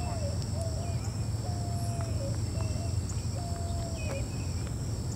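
Steady high insect chorus buzzing continuously, over a steady low rumble.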